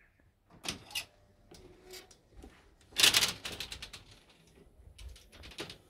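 Security screen door with diamond-pattern mesh being opened and moved: a run of latch clicks and metal rattles, the loudest a dense rattle about three seconds in.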